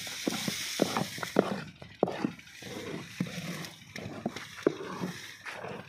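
Thick, cooling jaggery being worked with a flat scraper in a shallow tray, stirred so that it grains into powdered jaggery sugar (shakkar): irregular wet slaps, knocks and scrapes, several a second, over a light hiss.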